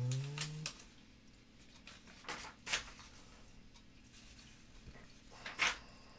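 Pages of a thick paper catalog being turned: crisp flicks and rustles about two seconds in and again near the end. A brief low hum of a voice at the very start.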